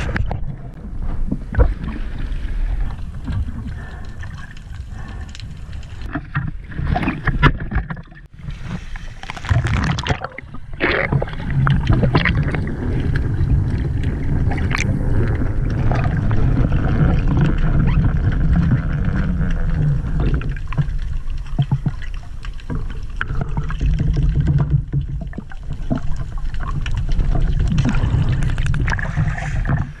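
Muffled sound of the sea recorded by an underwater camera: a low steady rumble of moving water, with scattered knocks and clicks against the housing.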